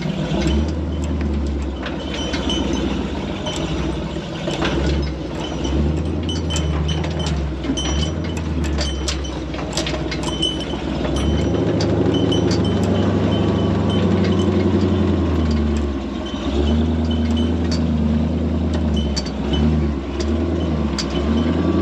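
Off-road tow truck's engine running at crawling speed, its pitch and load rising and falling, with a steadier, louder stretch in the middle. Frequent metallic clanks and rattles from the rigging and the side-by-side hung from the boom as it rocks over the terrain.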